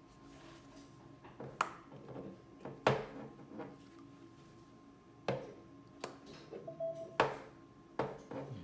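Small metal repair tools and phone parts clicking and tapping on a work surface, about six sharp taps spaced a second or so apart, over a faint steady hum.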